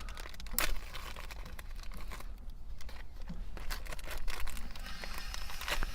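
Light crinkling rustle and scattered small clicks from hands handling the new shifter pivot bushings, with a sharper click about half a second in and another near the end.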